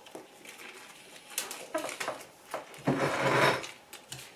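Eating sounds: chewing, with scattered small clicks and taps of food and dishes being handled. The loudest stretch of chewing comes about three seconds in.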